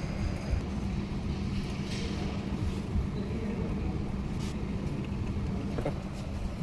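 Car engine idling steadily, a constant low rumble with a steady hum.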